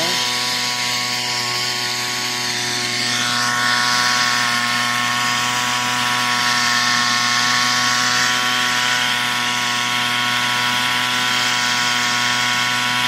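Small engine of a portable ant-fumigation machine running steadily at speed, pumping smoke through its pipe into leaf-cutter ant tunnels in the ground.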